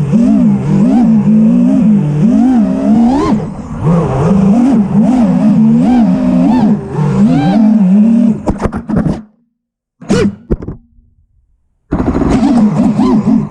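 A 5-inch FPV freestyle quadcopter's four brushless motors whining, the pitch swooping up and down quickly with the throttle. Near nine seconds in there are a few sharp knocks and the motors cut out; apart from a short burst about ten seconds in it is nearly silent until the motors spin back up near the end.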